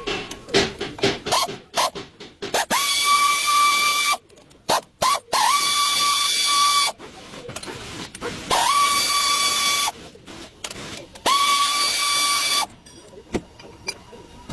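Pneumatic hand tool run in four bursts of about a second and a half. Each burst spins up quickly to a steady whine with a hiss of air and stops sharply. Between the bursts there are clicks and clanks of tools on metal.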